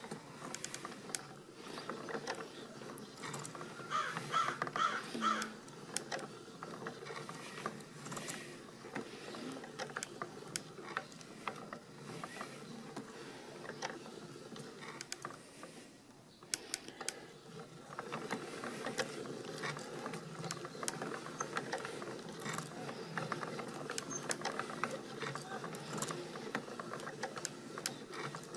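Hand-cranked automaton with 3D-printed plastic gears and a wooden frame running, its gears and linkages turning with many irregular clicks and knocks. A brief louder, higher-pitched sound comes about four seconds in.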